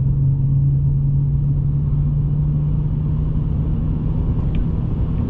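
Steady low rumble of a car driving, engine and tyre noise heard from inside the cabin, with a constant low hum under it.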